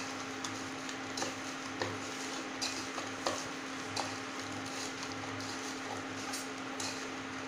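Cut brinjal pieces being tossed by hand in a bowl, giving soft, irregular knocks and rubbing sounds as the pieces tumble against each other and the bowl, over a steady low hum.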